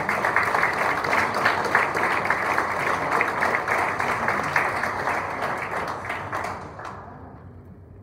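Audience applauding, the clapping dying away about seven seconds in.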